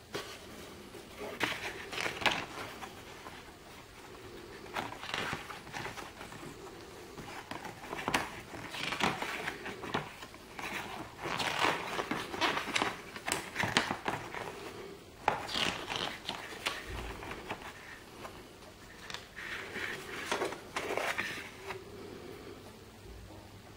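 Paper rustling and crinkling as a folded rules leaflet is unfolded and handled, in irregular bursts.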